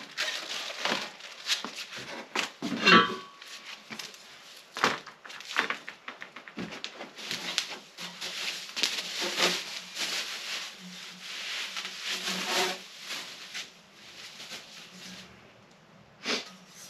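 Stainless steel exhaust pipes and parts being unpacked and handled: irregular clinks and knocks of metal, one ringing clink about three seconds in, with rustling of packing between.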